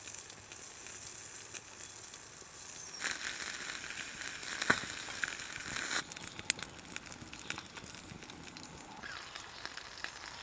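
Wood fire burning in a folding twig stove under a billy pot: a steady hiss with crackles and a few sharp pops, dropping quieter about six seconds in.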